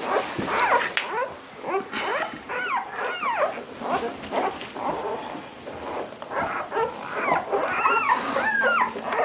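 Young American Water Spaniel puppies whimpering and squeaking: a steady run of short, high, overlapping calls that bend in pitch.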